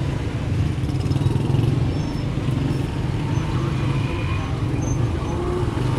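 Motorcycle and car engines running steadily close by in a crowded street, with general street bustle.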